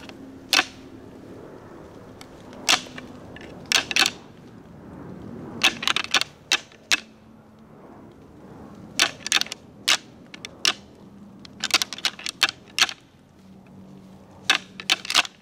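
Pair of rattling antlers clashed and ground together by hand: sharp clacks and clicks in irregular bursts of a few strikes at a time. This imitates two bucks sparring, a call used to draw in a buck during the rut.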